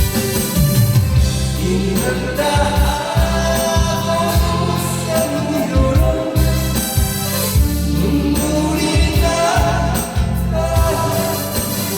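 Music: a song with a singing voice carrying a gliding melody over a steady bass beat.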